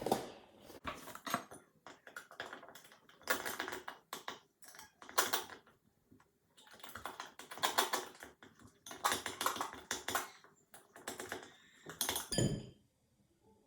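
Spoon stirring thick, doughy slime in a bowl: irregular bursts of scraping and clicking against the bowl, with one sharper clink near the end.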